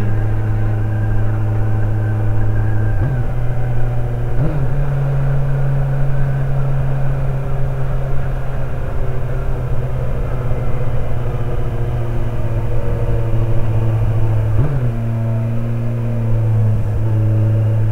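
Kawasaki Z900's inline-four engine running steadily while riding. Its note rises briefly twice a few seconds in, then settles lower about three seconds before the end.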